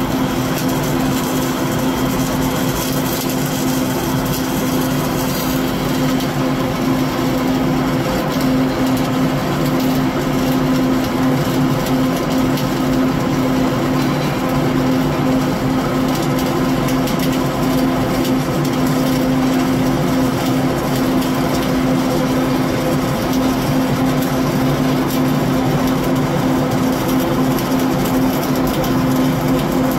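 Flux-cored arc welding with CO2 shielding gas on a vertical joint: the arc crackles steadily and without a break, over a steady low hum.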